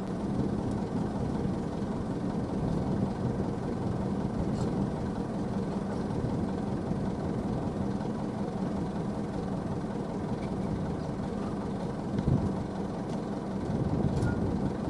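Heavy diesel machinery engine running steadily, with a single sharp knock about twelve seconds in and a louder stretch near the end.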